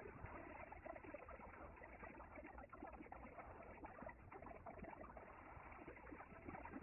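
Near silence: faint room tone with soft, irregular rustles and taps from a person shifting and sitting down on a foam exercise mat.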